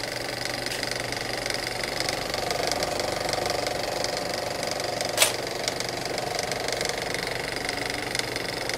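A steady mechanical whirring with fast, even clicking and a thin high whine, and one sharp click about five seconds in.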